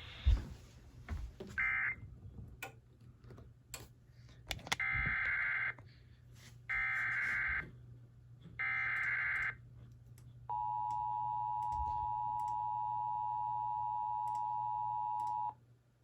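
Emergency Alert System tones: three SAME header data bursts, each about a second long with a second between them, then the two-tone EAS attention signal held for about five seconds before cutting off sharply. These tones precede a tornado warning. Scattered clicks and a short burst come before the data bursts.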